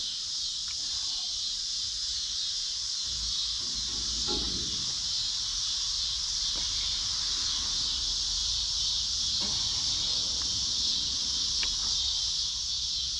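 Steady high-pitched chirring of crickets, with a few faint metal knocks and scrapes as a steel tractor wheel is worked onto its spindle.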